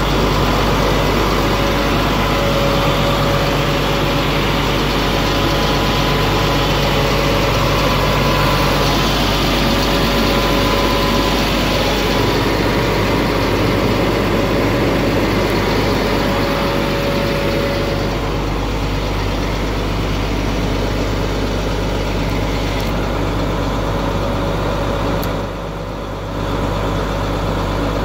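Tow truck engine idling steadily, with a brief dip in level near the end.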